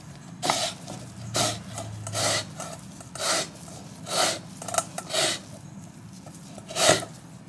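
Lemon being zested on a fine rasp grater over a stainless steel bowl: about eight rasping strokes of peel across the metal teeth, roughly one a second.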